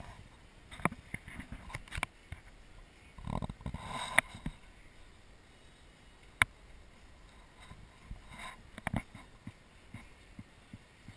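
Irregular clicks, knocks and rustling from a hand holding a wrist heart-rate monitor watch close to the microphone. Two sharp clicks stand out, about four and six and a half seconds in.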